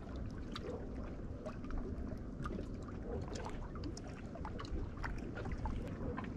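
Small sea waves lapping and splashing against the boulders of a rocky jetty: a steady wash of water with many little splashes and drips.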